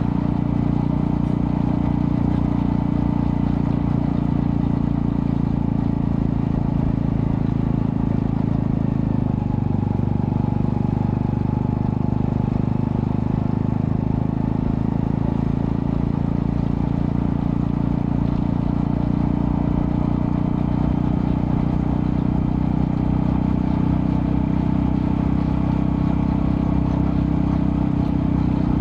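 Honda Astrea Prima-based 110cc four-stroke single-cylinder motorcycle engine running steadily through a custom underbelly exhaust with resonator, a deep even exhaust note that shifts slightly about ten seconds in.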